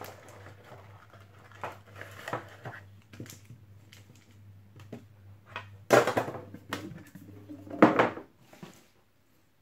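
Foil trading-card packets and cards rustling and clicking as they are taken out of a metal collector's tin, with two louder clatters about six and eight seconds in as the packets and the tin are set down and handled on the table.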